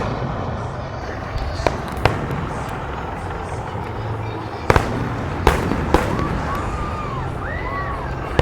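Aerial fireworks bursting: about six sharp bangs at uneven intervals over a steady rumble of distant shells, with a pair of bangs close together near the middle.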